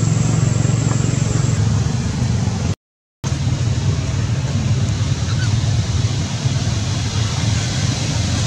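Steady low rumbling background noise. It cuts to complete silence for about half a second a little under three seconds in, then resumes.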